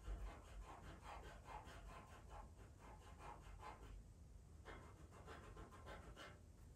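Faint, quick strokes of a pastel pencil scratching on pastel paper, about three or four a second, pausing about four seconds in before a few more strokes.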